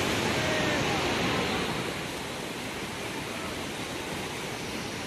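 Floodwater flowing over a submerged causeway: a steady, even rushing noise, a little louder in the first couple of seconds.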